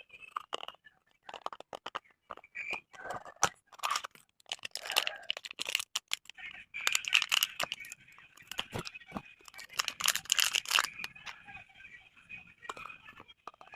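Packaging being handled and torn open: irregular crinkling, tearing and clicking of paper or plastic, with a high whine running alongside from about halfway.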